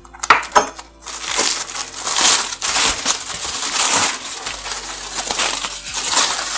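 Aluminium foil and paper wrapping being pulled open and crumpled by hand: a few sharp crinkles, then a dense continuous crackle from about a second in.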